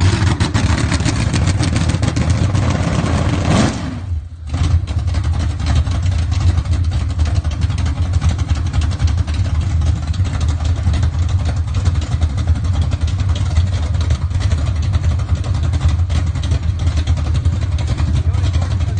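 Corvette V8 running through open headers with a choppy, loping idle from a big camshaft, just after its first start-up following the engine swap. About four seconds in the revs rise briefly and the sound dips for a moment, then settles back to a steady chop.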